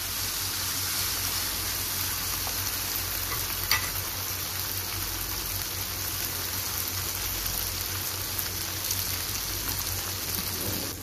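Boneless beef pieces in masala sizzling steadily in oil over a high flame in a non-stick wok, dry-frying (bhuna) now the yogurt's liquid has cooked off, with a spatula stirring through them at first. One sharp click a little under four seconds in.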